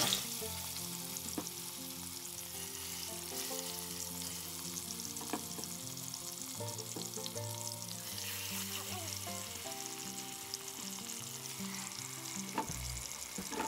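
Marinated chicken pieces sizzling in hot oil in a pressure cooker, a steady frying hiss with faint crackles, with soft background music of held notes underneath.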